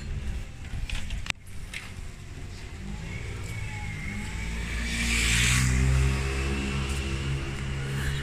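A motor vehicle passing close by on a street, its engine hum building from about three seconds in and loudest around five to six seconds, with a burst of hiss at its peak.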